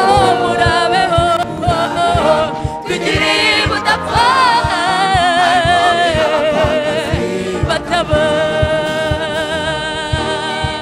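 Gospel song: a lead voice singing with a strong vibrato over a steady drum beat.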